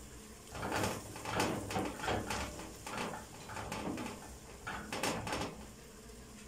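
Silicone spatula stirring sautéed onions and grated tomato in a stone-coated pot, a run of short scraping strokes about two a second that stops about five and a half seconds in.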